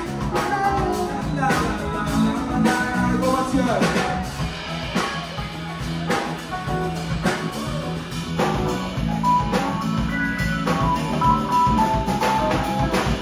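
Live band playing with electric guitar, bass guitar, drum kit and keyboard, with a steady beat, heard from within the audience.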